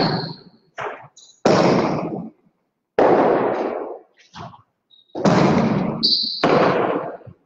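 Jai alai pelota in a rally, striking the court's walls and floor and the players' cestas: a string of loud cracks roughly every second, each ringing on in a long echo, with a few short high squeaks in between.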